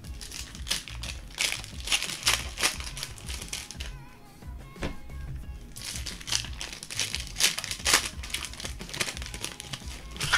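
Plastic wrappers of Optic basketball card packs and boxes crinkling as they are torn open and handled, in two spells of rustling.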